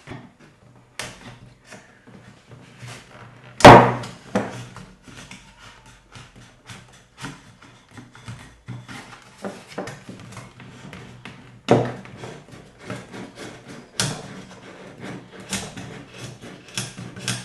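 Chisel scraping hardened epoxy squeeze-out: many short, quiet scraping strokes, broken by a few sharp knocks, the loudest about four seconds in.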